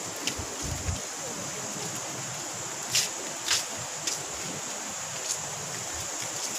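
A steady rushing noise, with two sharp clicks about halfway through.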